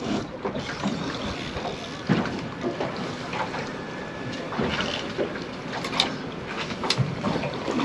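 Wind buffeting the microphone and sea water washing against a small boat's hull, with a few light knocks near the end.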